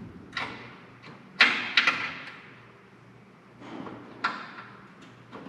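Hand tools clinking and knocking against metal as a brake line and front-end parts are worked on: several sharp, separate strikes at uneven intervals, the loudest about a second and a half in.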